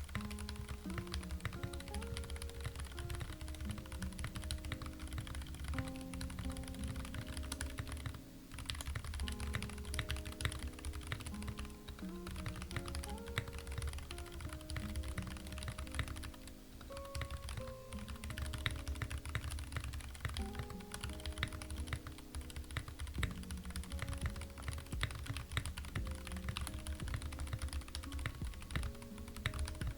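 Fast, continuous typing on a Kemove Snowfox 61-key mechanical keyboard with Gateron Brown tactile switches: a dense patter of keystrokes with a short pause about eight seconds in. Soft background music plays underneath.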